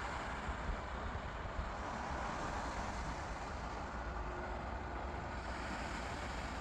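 Sea waves washing steadily onto the shore, a continuous rushing noise, with low wind rumble on the microphone.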